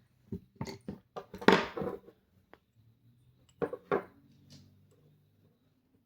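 Small clicks and clinks of bolt action pen parts being handled, in short clusters, the loudest about a second and a half in and another pair near four seconds in.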